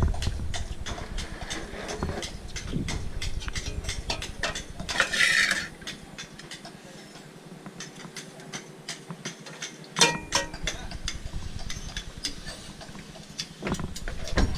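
Metal tools and loose engine parts clinking and knocking against steel pots and a wooden deck as they are handled. A short burst of noise about five seconds in, and one louder metallic clank that rings briefly about ten seconds in.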